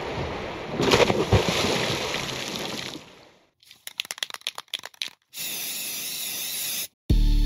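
Rushing water and spray from a boat underway, fading out after about three seconds. Then comes a quick run of sharp clicks, a short steady hiss, and music starting near the end.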